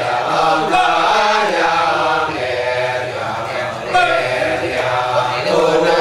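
Kecak chorus of many men chanting together, holding long notes that shift in pitch, with fresh entries about a second in and again about four seconds in.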